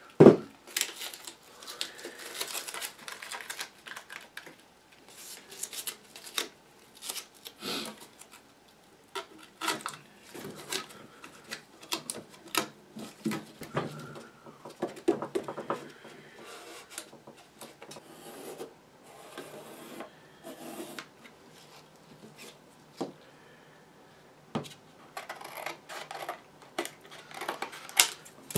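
Workbench handling noises: irregular knocks and clicks as a Bakelite radio cabinet is moved on a rubber mat, with rubbing as masking tape is pressed onto it, and scissors cutting cardboard near the end. A sharp knock just after the start is the loudest sound.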